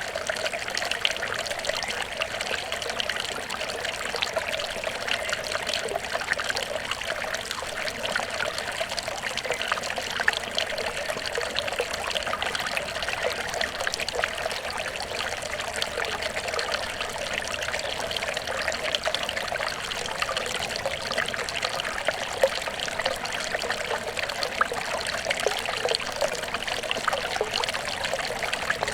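Water trickling steadily, with many small splashes and gurgles, as of a small stream.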